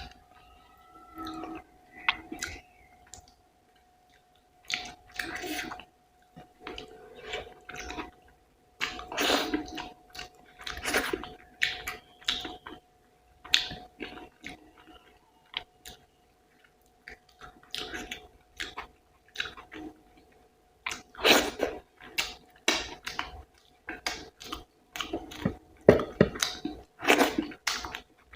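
Close-miked chewing and wet mouth sounds of someone eating rice and curry, in irregular bursts with occasional crunches, over a faint steady hum.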